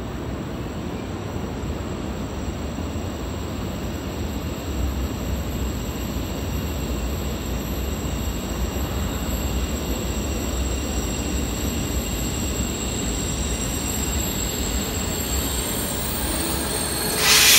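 A train rolling through a station, with a steady low rumble and a high, thin squeal from the wheels on the rails. Near the end there is a sudden loud burst of hissing noise.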